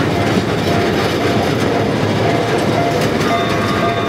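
Solar-powered ride-on miniature train running along its narrow-gauge track, heard from aboard: a steady rumble and clatter of wheels on rails. A thin high ringing tone joins about three seconds in.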